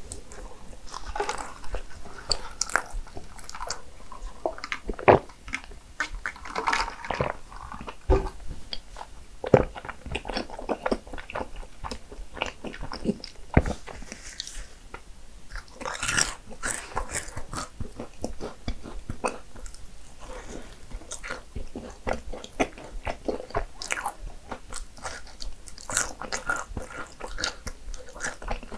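A person biting into and chewing cinnamon rolls: a steady string of small mouth clicks and smacks with a few sharper crunches.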